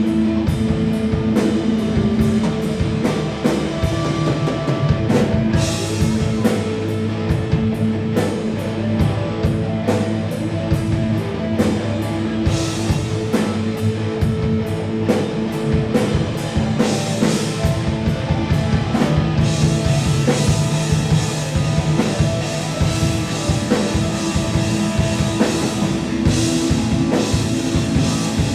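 Live instrumental rock band playing: electric guitars holding sustained chords over a drum kit, with no vocals.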